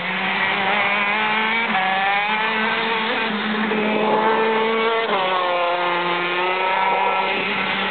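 A racing kart's two-stroke Maxter engine, driven hard on the circuit. Its pitch climbs and drops again and again as the driver accelerates and lifts through the corners, with a sharp pick-up about five seconds in that then falls away.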